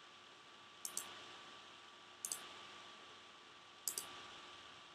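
Three quiet computer mouse clicks, each a quick double tick of press and release: about a second in, a little past two seconds, and near four seconds. A faint steady hum and hiss run underneath.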